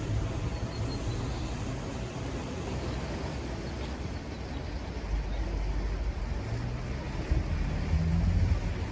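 Wind buffeting the microphone, a low rumble that gets stronger about five seconds in.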